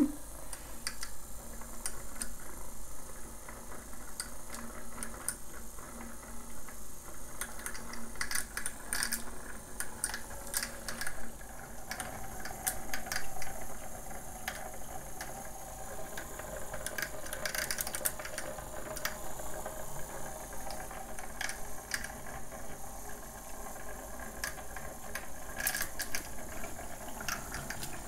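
Small electric motor in the base of a toy tornado lab running at its lowest speed, spinning water in a clear plastic tank. Light clicks and rattles come at irregular intervals throughout, and a faint hum grows a little stronger about halfway through.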